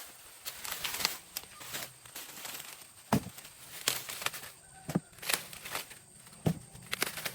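Dry corn leaves and husks rustling and crackling as corn is picked by hand, with several sharp snaps.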